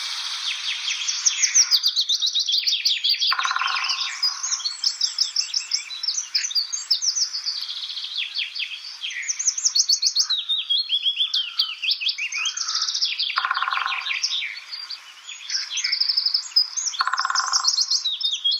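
Recorded birdsong: many songbirds chirping and trilling over each other. Three times, a lower, very fast rattle about a second long cuts through them, which is typical of woodpecker drumming.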